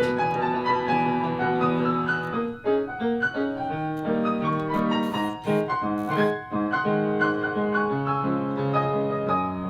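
Piano playing an instrumental passage of chords and melody notes, with no voice.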